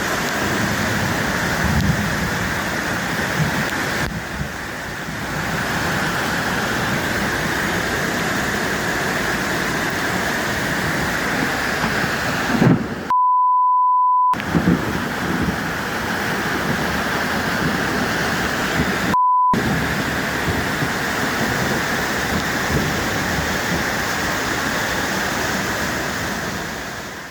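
Heavy rain pouring down and floodwater rushing through a street, a steady, unbroken rush of water noise. Twice it is cut by a censor bleep: once for about a second, then briefly.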